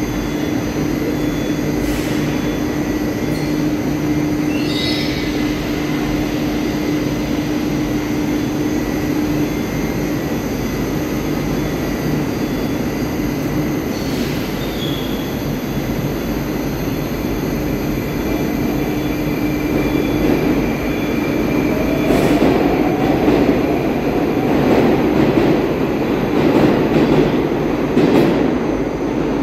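Metro trains in an underground station: a standing train hums steadily, then from about 20 s a train pulls out, its traction motors whining upward in pitch over the clatter and squeal of its wheels, growing louder toward the end.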